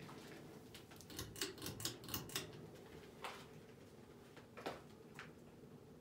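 1989 NuTone Decorator ceiling fan running with a faint steady hum. About a second in comes a quick run of about eight light clicks, and a few single clicks follow later.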